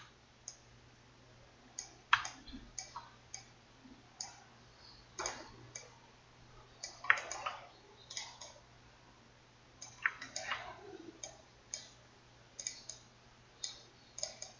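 Computer mouse and keyboard clicking at irregular intervals, sometimes in quick clusters, over a faint steady hum.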